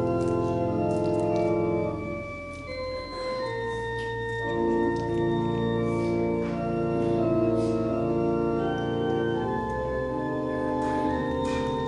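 Organ playing sustained chords in slow succession as offertory music, the chords thinning briefly about two seconds in before filling out again.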